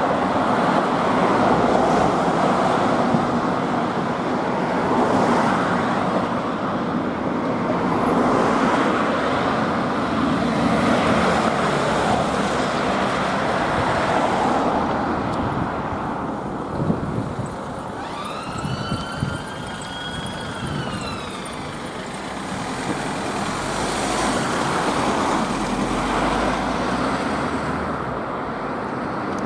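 Steady road traffic noise as a Fiat Ducato ambulance passes on blue lights, with one short siren wail that rises, holds and falls about two-thirds of the way through.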